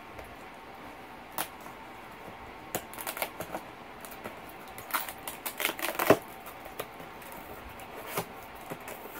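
Pocket knife cutting the tape along the top of a cardboard box: scattered scrapes, taps and crackles of blade on cardboard, busiest and loudest from about five to six seconds in. Near the end the box is pulled open with a light scrape of cardboard.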